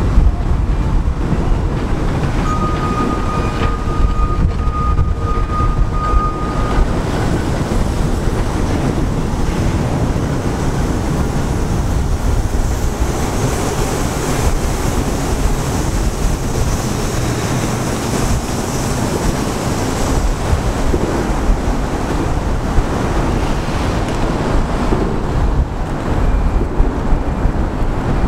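Budd R32 subway cars rolling slowly along street track under tow: a steady low rumble of wheels on rail, with wind buffeting the microphone. A thin steady high tone sounds for about four seconds a few seconds in.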